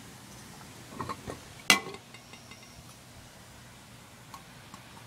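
Handling noise: a few sharp clicks and knocks close together, the loudest about a second and a half in, then two faint ticks near the end.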